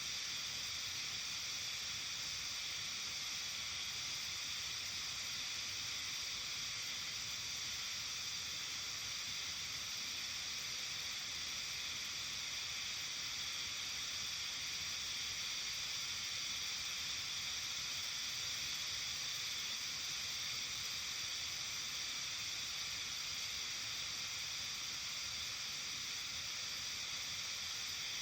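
Steady outdoor evening ambience: an even hiss, strongest in the upper range, with no distinct calls or events.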